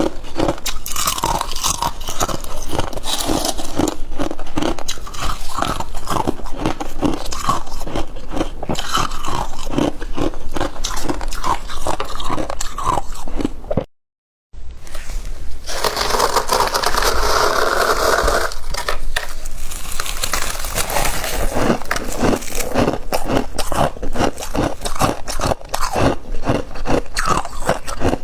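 Close-miked crunching and chewing of freezer frost, a dense run of crackly crunches. About halfway through, the sound cuts out for half a second, then comes a few seconds of steadier rasping, like frost being scraped, before the crunching resumes.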